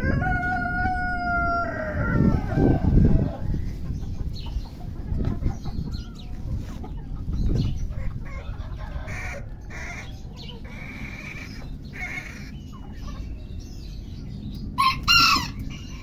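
Ayam Cemani rooster crowing: one long held note that slides down and breaks off about two seconds in. Scattered clucking follows, and a loud short squawk comes near the end.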